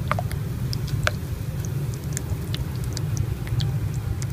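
25 W ultrasonic mist maker running under a cup of water and churning it into mist: a steady low hum with scattered small ticks and pops from the agitated water.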